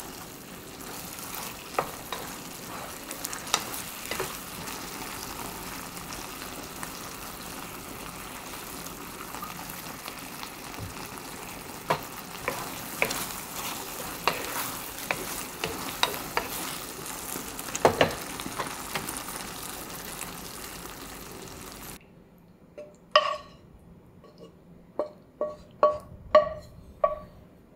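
Stir-fry sizzling steadily in a frying pan while a wooden spatula scrapes and taps through the thickened sauce of pork, shrimp and vegetables. About 22 seconds in the sizzle stops, and several sharp clinks with a short ring follow as the food is slid out of the pan into a ceramic bowl.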